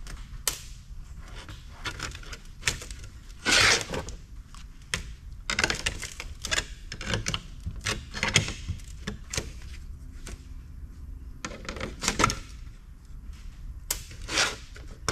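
Metal parts and hand tools being handled on a steel workbench: irregular clicks, taps and clatter, with a brief louder scrape about a third of the way in and again near the end.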